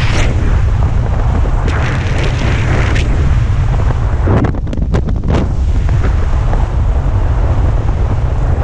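Wind buffeting the camera microphone during canopy flight under an open parachute: a loud, steady low rumble that surges and briefly drops away about halfway through.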